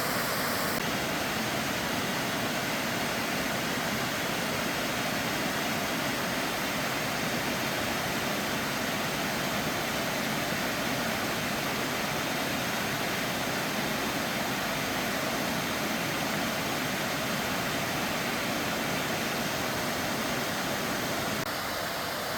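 Creek waterfall, likely Apron Falls on Duncan Creek, rushing with a steady, even sound of falling water.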